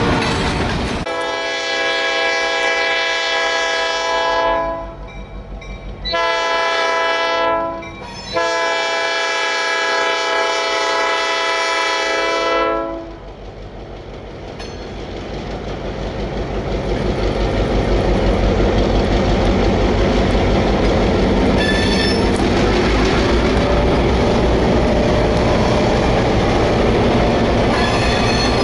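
EMD diesel locomotive's air horn sounding for a grade crossing: a long blast, a shorter one, then another long one. Then the EMD GP10 and GP7 locomotives pass close, engines rumbling, wheels clicking over rail joints as the loaded covered hoppers follow.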